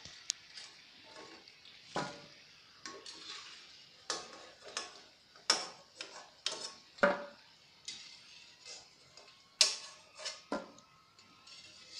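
Irregular sharp clicks and taps of a steel slotted spoon and crisp fried namak pare knocking on a steel plate lined with tissue paper, as the fried sticks are tipped out and spread to drain.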